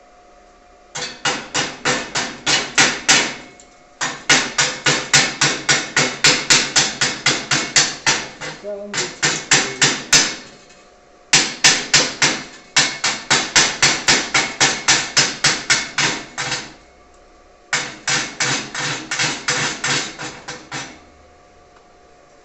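Chipping hammer rapping on a fresh stick (MMA) weld to knock the slag off the vertical-up bead, at about five quick metallic strikes a second. The strikes come in five runs with short pauses between them.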